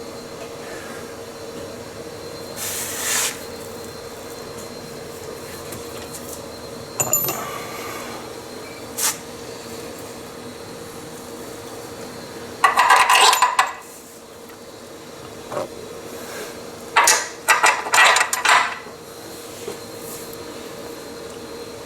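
Hand tools and metal parts clinking and rattling in scattered bursts, the loudest a clattering rattle about thirteen seconds in and a quick run of clinks a few seconds later, over a steady hum.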